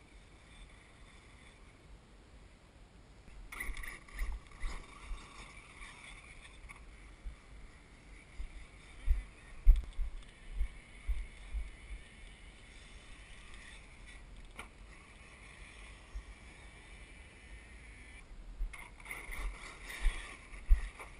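RC monster truck driving over sand with the microphone on board: uneven low thumps and rumble from bumps and wind, and a high motor whine that comes in about three seconds in, fades, and returns near the end.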